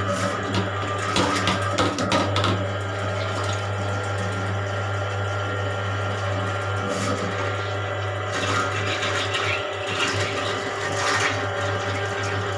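Electric drain-cleaning machine's motor running with a steady low hum while water splashes and swirls down a bathroom floor drain as the blockage clears.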